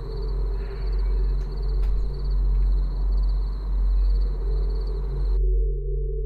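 Dark, low drone of horror-film sound design, swelling and fading about once a second over steady held tones, with a thin high whine above it that drops out a little after five seconds in while the low drone carries on. A door clicks shut about two seconds in.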